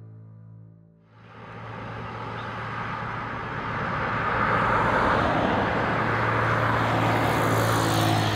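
Soft background music with a steady low tone, under a rushing noise that starts about a second in, swells, and cuts off abruptly at the end.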